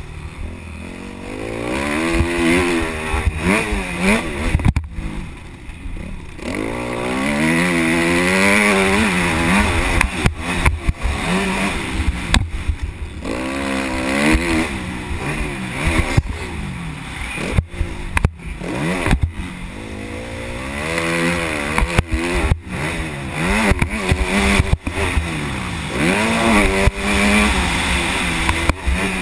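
Motocross dirt bike engine revving hard and easing off again and again as it accelerates and shifts along a dirt track, the pitch climbing and falling every second or two. Wind rumbles on the microphone throughout, and the sound drops out sharply for an instant several times.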